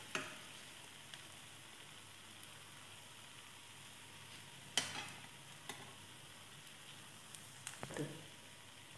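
Rice batter sizzling faintly and steadily in oil in the cups of a non-stick paniyaram pan on a low flame. A few light clicks and taps are heard as chicken filling is dropped into the cups: one about five seconds in, another shortly after, and a small cluster near the end.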